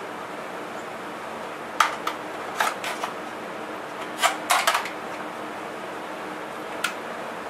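Sharp clicks and clacks from handling fittings while hooking a 12-volt air pump up to a motorcycle tire's valve stem, in small clusters over a steady background hum.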